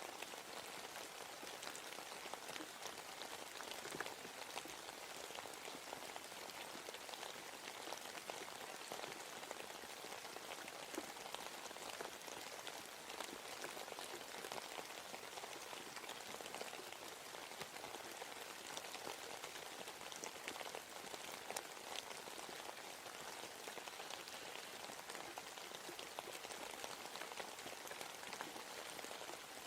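Steady rain falling in a forest, a dense patter of many individual drops ticking on leaves and surfaces.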